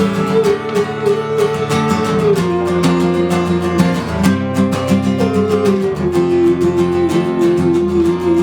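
Acoustic guitar strummed steadily, with a long held melody note above it that steps down in pitch a few times.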